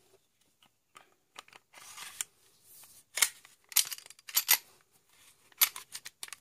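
A striker-fired pistol being handled: a series of sharp clicks and short scraping sounds as its slide and trigger are worked, the loudest clicks around the middle and near the end.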